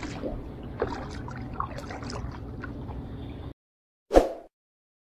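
Water sloshing and splashing around a small wooden canoe as it is paddled, with a few small paddle splashes. About three and a half seconds in it cuts off abruptly, and a single short pop of a sound effect follows.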